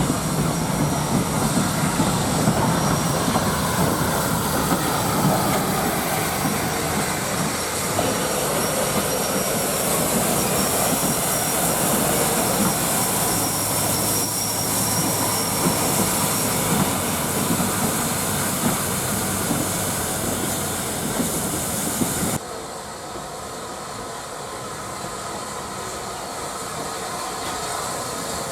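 Heritage railway train running on the track, wheels clattering over the rails with a thin high wheel squeal. About three-quarters of the way through the sound cuts abruptly to a quieter, hissing background.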